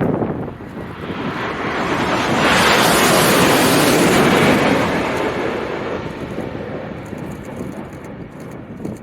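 Jet airliner passing low overhead on final approach: its engine noise swells over a couple of seconds, holds, then slowly fades away, with strong wind buffeting the microphone.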